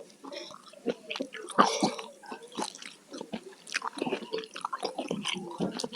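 Close-miked eating: chewing with irregular wet smacking and clicking mouth sounds, one louder smack a little over a second and a half in.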